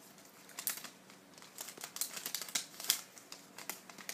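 Magic: The Gathering cards and booster-pack wrapper being handled: irregular crinkling rustles and small sharp clicks.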